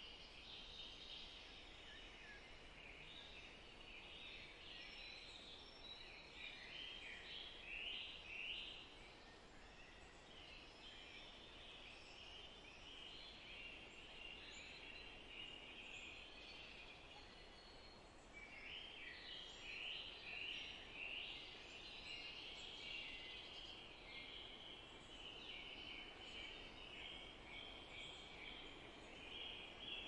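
Faint chorus of small birds chirping and twittering in quick overlapping phrases, thinning out for several seconds in the middle, over a soft hiss.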